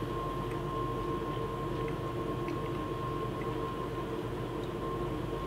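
Steady room hum with a thin, constant high whine, and a few faint clicks of a man chewing a crispy breaded, cheese-stuffed fried shrimp with his mouth closed.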